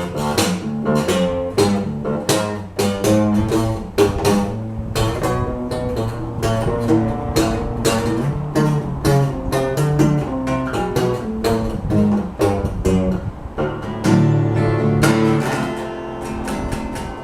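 Instrumental break of an old-time Appalachian folk tune: quickly picked acoustic guitar over a bass line. About fourteen seconds in, it swells into a fuller held chord, then plays more softly near the end.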